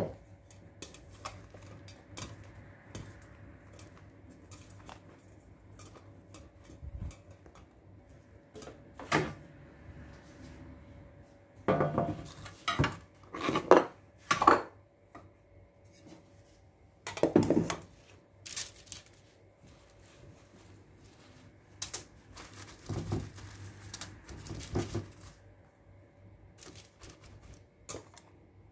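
Kitchen handling sounds: scattered knocks and clatter from a stainless steel bowl of sliced eggplant on a wooden board, and rustling of baking paper as it is laid out. The noise comes in short clusters, loudest around the middle.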